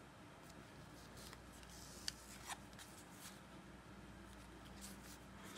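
Faint clicks and rustle of stiff board-game cards being slid against one another in the hand, about half a dozen small ticks over near silence, the loudest about two seconds in.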